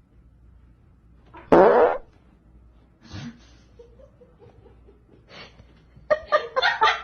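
A short, loud fart sound about one and a half seconds in. A rapid run of short pulses starts about six seconds in.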